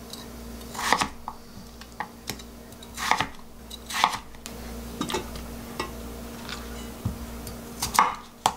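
Kitchen knife slicing a peeled potato into thick chunks on a wooden cutting board: a handful of separate chops as the blade knocks the board, with lighter clicks as the pieces are moved into a stainless steel pot. The loudest knock comes near the end, over a faint steady hum.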